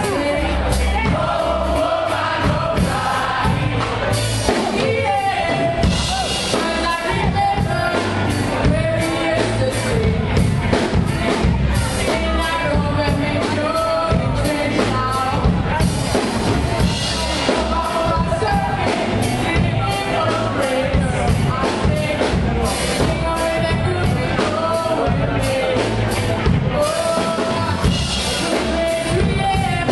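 Live band playing a song: a singer at a microphone over electric guitar and bass guitar, with a steady beat.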